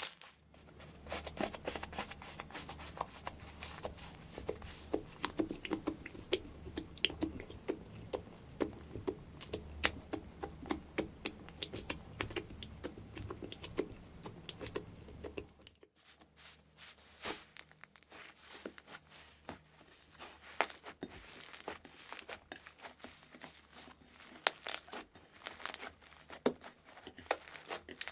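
Slime being squished and stretched by hand, giving a dense run of small irregular crackles and pops. About halfway through, the background changes abruptly as a new clip begins, and the crackling goes on.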